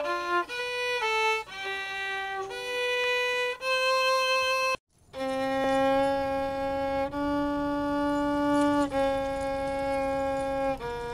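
Background music: a solo violin melody, a run of short notes, then a brief break a little under five seconds in, then long held notes.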